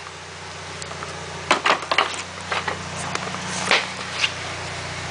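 A 1995 Mitsubishi Eclipse RS's four-cylinder engine idling steadily, with a few sharp knocks and clatters of handling about one and a half, two, and four seconds in.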